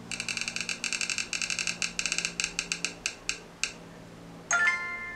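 Spin-the-wheel randomizer app on a smartphone, played through the phone's speaker: rapid clicking ticks that slow down as the wheel coasts to a stop, then about a second later a short chime of several held tones as it lands on its pick.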